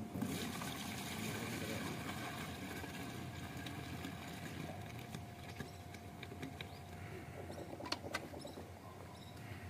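Milk poured from a steel bucket into a plastic bucket, a steady splashing stream that slowly weakens and dies away near the end, with a few light clicks.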